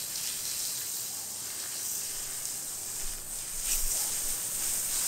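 Garden hose spray nozzle spraying a steady hissing stream of water onto hard, dry dirt.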